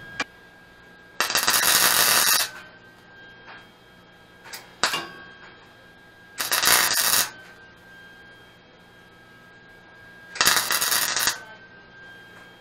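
MIG welder laying three short tack welds, each a loud crackling, sizzling burst of about a second with quiet gaps between. A few small clicks come between the welds.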